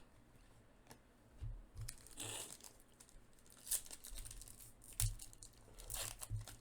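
Trading card packs and cards being handled: crinkling foil wrappers and short scrapes of cards being slid and sorted, several faint irregular rustles.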